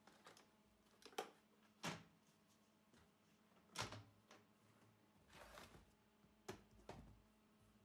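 Handling noises from a switched-off shop vacuum and a plastic bin: about six faint, short knocks and clicks, with a brief rustle just past the middle.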